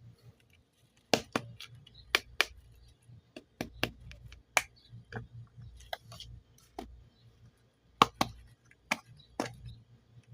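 Scissors snipping through modelling clay: a run of sharp, irregular snips and clicks, a few much louder than the rest.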